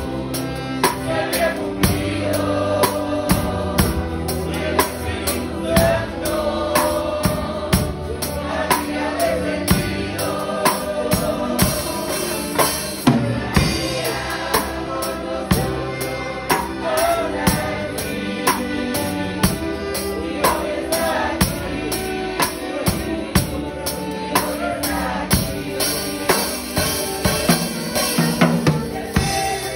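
A choir and congregation sing a Spanish-language hymn, accompanied by strummed mandolins and guitars and a drum kit keeping a steady beat of roughly two strikes a second.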